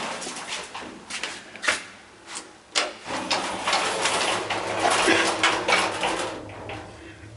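Passenger lift's automatic sliding doors closing: a few sharp clicks, then the door mechanism rattles with a steady low hum from about three seconds in.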